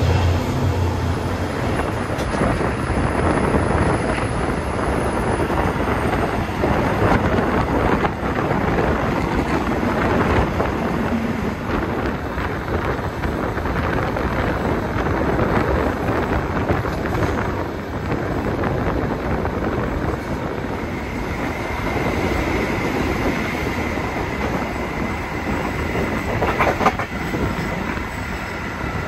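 Passenger train running along the track: a steady rumble of the moving coach with wheels clacking over the rails. A faint high, steady whine joins in about two-thirds of the way through, and there is one short knock near the end.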